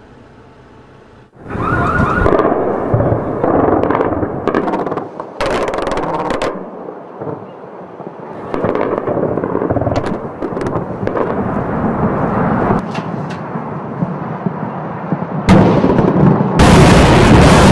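Anti-aircraft gunfire in repeated bursts with sharp cracks, starting a second or so in. Near the end, large bomb explosions set in as a loud, continuous blast noise.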